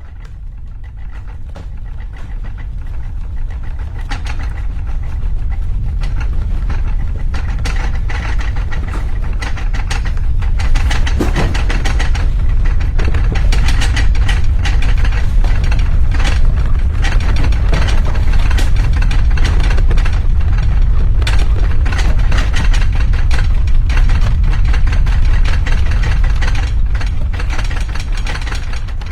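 Earthquake sound effect: a deep, heavy rumble with steady rattling and clattering. It swells over the first ten seconds or so, holds loud, and starts to die away near the end.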